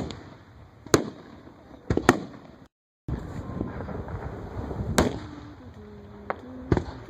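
Fireworks going off: sharp bangs about a second apart, then after a brief dropout another bang a few seconds later over a steady background of the show.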